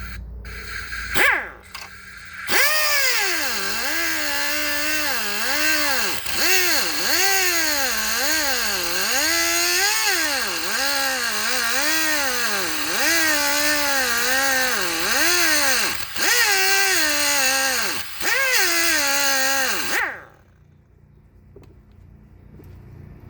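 Pneumatic cut-off grinder cutting through welds on a steel frame bracket, with a couple of short blips, then a loud steady run. Its high whine sags and recovers about once a second as the wheel bites into the metal, then stops suddenly near the end.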